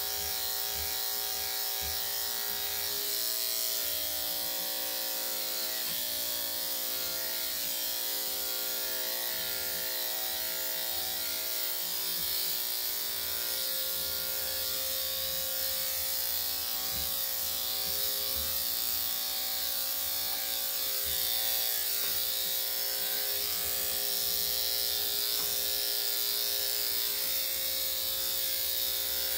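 Corded electric dog clipper fitted with a 3/4-inch blade, buzzing steadily as it shaves through a Shih Tzu's body coat.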